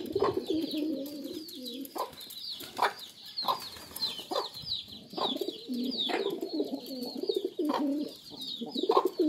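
Pigeons cooing in low, warbling, overlapping calls, with high thin chirps and short sharp taps about once a second from the feeding flock.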